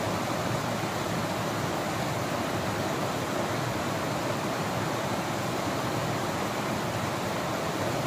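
Steady rush of the Narmada river's flowing water, an even hiss with no breaks.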